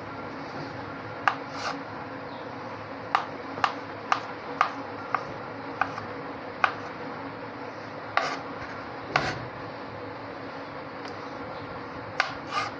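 Kitchen knife chopping boiled potatoes on a plastic cutting board: about a dozen sharp, irregular taps of the blade striking the board, over a steady low hum.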